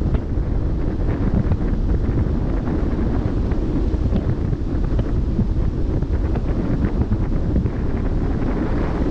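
Wind buffeting the microphone at a ship's bow, a steady, gusting low rumble, with the hiss of the sea washing past beneath it.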